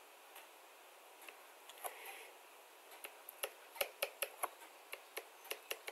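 Faint, irregular clicks and taps of a stylus pen on a drawing tablet as a structure is drawn, sparse at first and coming more often from about halfway through.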